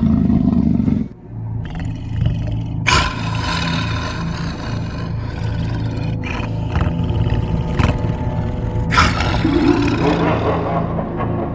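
Dark, ominous dance-soundtrack music over a low sustained drone, with a sudden loud hit about three seconds in and another near nine seconds, each ringing away slowly.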